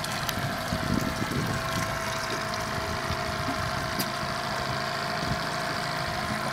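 Small kicker outboard motor running steadily on a fishing boat, a continuous hum with a thin steady whine, over water washing at the stern.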